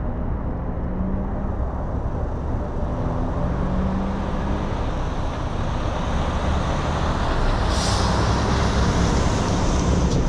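Low steady rumble of a car idling at a traffic light amid passing traffic. About eight seconds in it grows louder and a hiss of wind and road noise comes in as the car pulls away.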